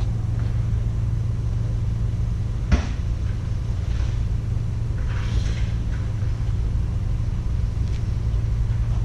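A vehicle engine idling with a steady low rumble. A single sharp knock comes a little under three seconds in, and a brief hiss comes around five seconds in.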